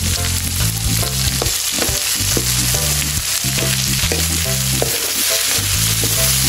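Diced potatoes, carrots and chili sizzling in oil in a metal wok, stirred with a metal ladle that scrapes and taps against the pan.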